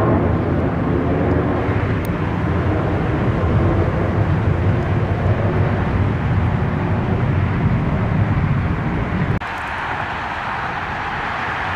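Airliner engines running: a deep rumble with a faint steady hum under it. About nine seconds in it cuts off suddenly and is replaced by a quieter, higher hissing engine sound.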